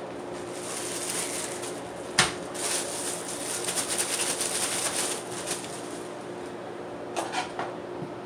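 Kitchen work sounds over a steady low hum: a single sharp knock about two seconds in, light clicks and clatter, and a couple more knocks near the end.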